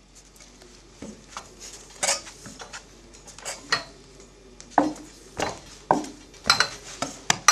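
Footsteps of a walker on an above-knee leg prosthesis: a series of sharp, irregular clacks and metallic clinks at the steps, louder and closer together in the second half.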